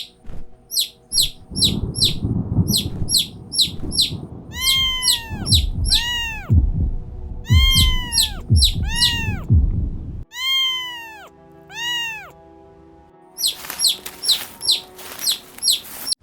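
A chick peeping in quick runs of short, high, falling chirps, about five a second, and a kitten mewing with drawn-out calls that rise and fall, about ten of them through the middle, the last two alone. For the first ten seconds a low rushing noise like storm wind lies beneath them, with soft background music.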